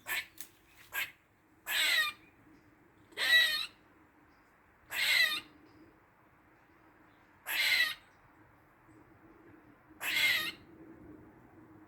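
Squirrel calling: three short clicks, then five harsh, rasping calls of about half a second each, spaced a couple of seconds apart.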